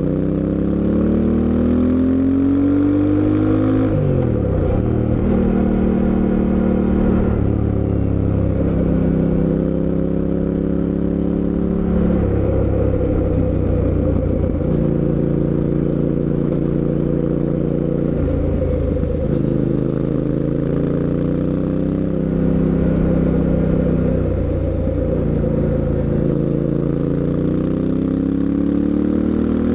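Fantic Caballero 700 Scrambler's 689 cc parallel-twin engine under way. It climbs in pitch, drops sharply at a gear change about four seconds in, then alternates between steady cruising and further rises and drops as the rider changes gear.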